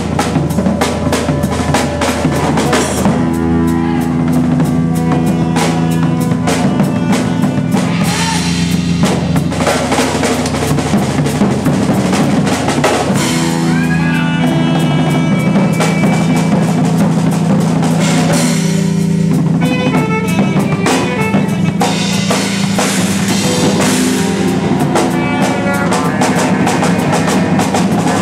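Live band playing a loud improvised jam: a drum kit with cymbals hit in dense, fast strokes under electric guitars and bass holding sustained notes that change every few seconds.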